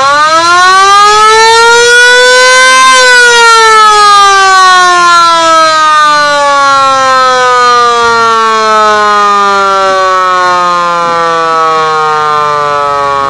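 Flood early-warning system siren being tested, very loud: one long wail that rises steeply to its peak about three seconds in, then falls slowly for the rest of the time.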